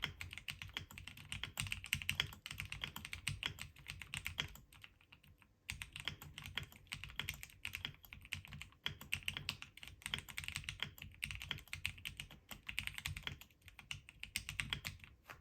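Fast, continuous typing on a JamesDonkey RS2 keyboard, its key presses well dampened and fairly quiet, with a soft thunk as the larger spacebar is released. Typing pauses briefly about five seconds in.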